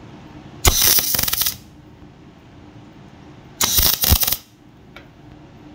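MIG welder striking two tack welds on steel plate: two bursts of crackling arc, the first about a second long starting just under a second in, the second shorter, about three and a half seconds in.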